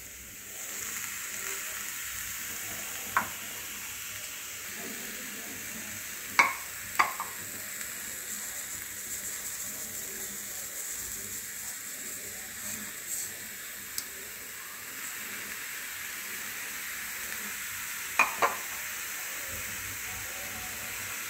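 Grated amla and sugar hissing steadily as they heat in a nonstick pan on a low gas flame, with a few sharp clicks of a utensil or bowl against the pan, a pair about six to seven seconds in and another pair near the end.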